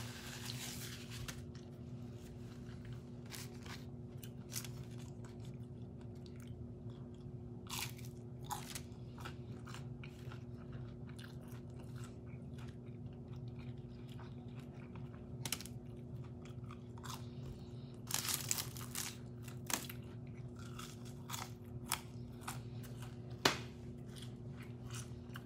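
A person chewing and biting fast food close to the microphone, with scattered crisp crunches that bunch together about two-thirds of the way through, over a steady low hum.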